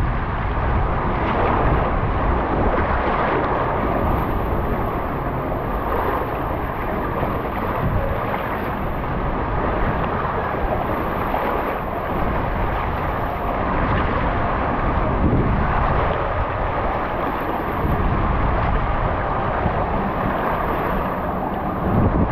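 Water rushing down a WhiteWater West open-flume water slide as a tube rides down it, a steady, loud noise, with wind buffeting the microphone.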